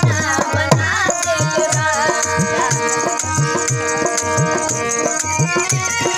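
Harmonium playing held chords while a dholak keeps a steady beat, its deep strokes sagging in pitch after each hit. A woman's singing voice rides over them in the first few seconds.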